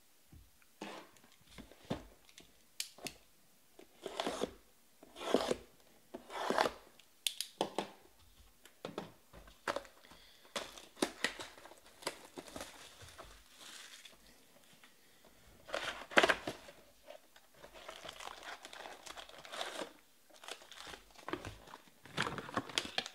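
Plastic wrap being torn and crumpled and foil trading-card packs crinkling as a sealed box of Panini Select baseball cards is opened and its packs taken out. Irregular crackles and rustles, loudest in bursts about five seconds in and again about sixteen seconds in.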